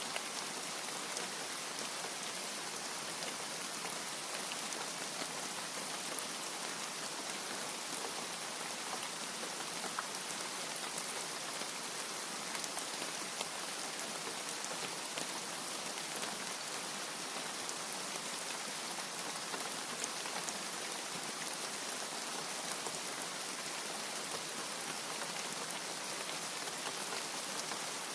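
Steady rain falling: a constant, even hiss with scattered faint drop ticks, and no thunder.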